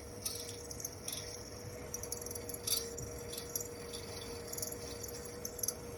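Light metallic clicks and rattles of small parts being handled while the oven's cooling fan is taken apart by hand, over a steady faint hum.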